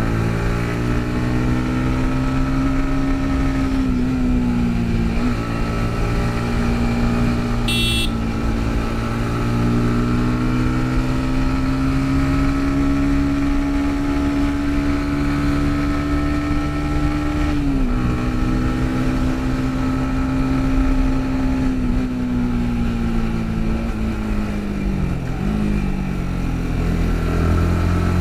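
Yamaha MT-15's 155 cc single-cylinder engine running under way, its pitch slowly climbing and then dropping abruptly three times as the throttle is eased or a gear is changed. A brief high-pitched chirp sounds about eight seconds in.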